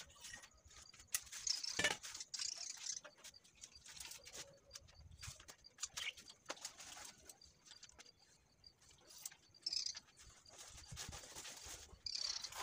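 A marking tool scraping lines into a textured plaster wall along a spirit level held against it, in irregular short scratches with light clicks and taps of the level.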